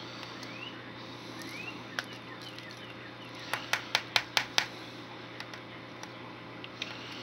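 A metal spoon tapped sharply against the rim of a plastic bowl of mashed potatoes, six quick taps in about a second, a little past the middle.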